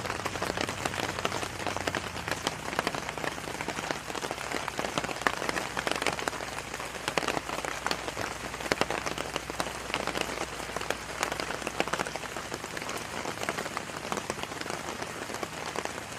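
Heavy rain drumming steadily on a tent's rain fly: a dense, even patter of countless drops.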